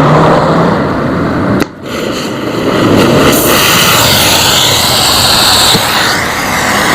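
Angle grinder running against the steel of a motorcycle exhaust muffler. It dips briefly about two seconds in, then picks back up and runs steadily.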